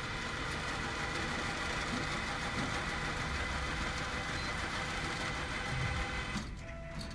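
Evention cash recycling machine's note recycler running steadily as it transports and counts a stack of banknotes, then cutting off suddenly about six and a half seconds in.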